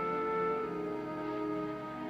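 Orchestral television score: slow, long held chords from horns and strings.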